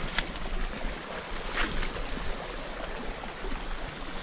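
A shallow stream flowing over rocks: a steady rush of water, with a few faint knocks or clicks.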